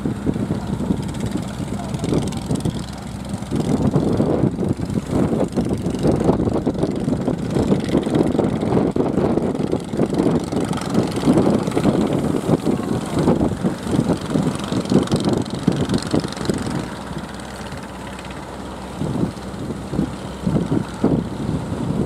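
Fishing boat engine running, a continuous rough drone that swells and dips, with a steady low hum under it for the first few seconds.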